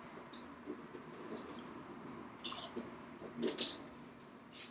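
A little splash of water added to a glass of scotch, heard as a few short splashing sounds; the loudest comes about three and a half seconds in.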